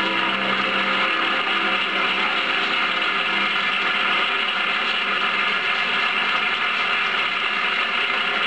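Studio audience applauding steadily, as the last notes of a song fade out in the first second.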